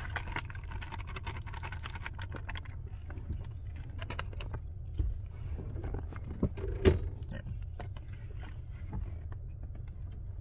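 Snack bag crinkling and popcorn being crunched, a scatter of sharp crackles and clicks, over a steady low rumble.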